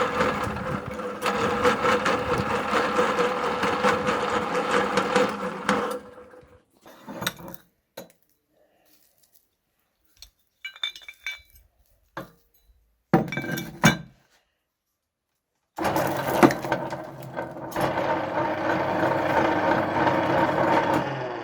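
Meat grinder running with a steady hum as it works on hard lollipop candy, stopping about six seconds in. A few sharp clinks and cracks of hard candy follow in the quiet, then the grinder starts again about sixteen seconds in and runs until near the end.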